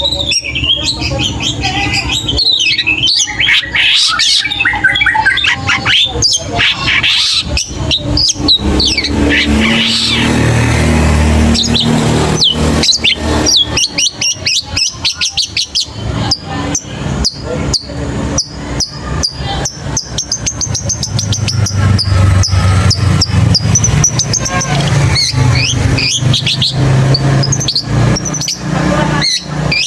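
Young long-tailed shrike (cendet) singing a long, fast run of chattering, squeaky notes.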